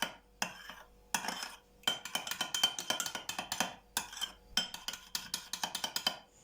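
A spoon stirring a thick sour-cream sauce in a small bowl: rapid clinks and scrapes of the spoon against the bowl, with a few brief pauses.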